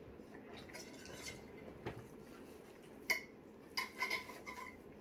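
Faint handling of cutlery and dishes: a few light clinks and knocks, most of them in the second half.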